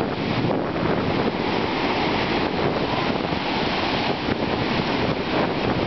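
Sea waves breaking and washing up a sandy beach: a steady rush of surf.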